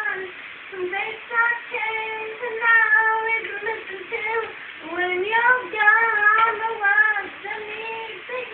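A woman singing alone, unaccompanied, in a high voice, holding long notes in phrases with short breaks between them, one break about four seconds in.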